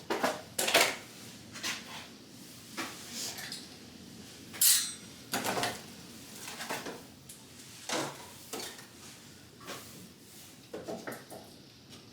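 Gardening pots and trays being shifted and set down: a string of irregular clatters and knocks, the loudest about a second in and again near five seconds in.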